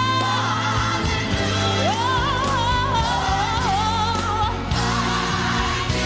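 Gospel song: a lead voice sings a wavering, ornamented run over a band and backing choir.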